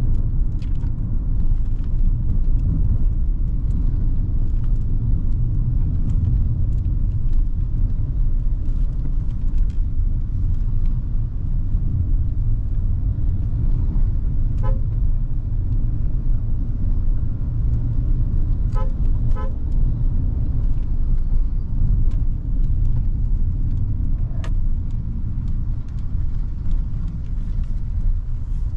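Hyundai Creta's 1.5-litre four-cylinder petrol engine and road noise as it drives along a road, a steady low rumble. A car horn gives a short toot about halfway through, then two quick toots a few seconds later.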